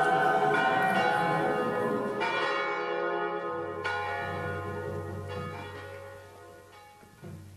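Church bells ringing, struck again every second or so, the ringing slowly fading away.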